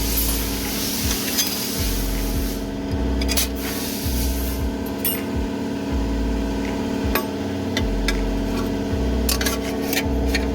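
Light metallic clicks and clinks of transmission clutch friction discs and steel plates being stacked into the low-reverse clutch, over a steady droning hum. A hiss runs through the first few seconds.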